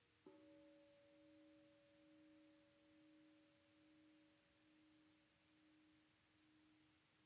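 Very faint new-music soundtrack of sustained pure tones: a low tone swelling and fading slowly, joined just after the start by a higher tone that begins with a sharp attack and dies away near the end.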